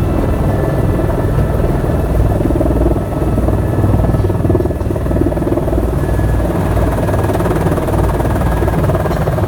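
Helicopter in flight, its rotor chopping steadily and loudly.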